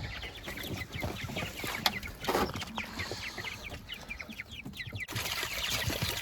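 Chickens clucking in many short, quick, falling calls. A steady hiss comes in about five seconds in.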